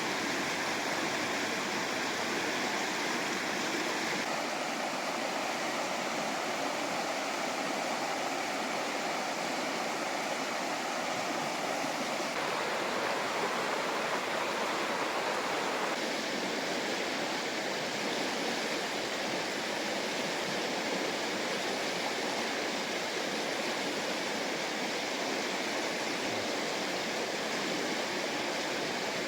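Fast-flowing river rushing steadily, a continuous hiss of white water whose tone shifts abruptly a few times.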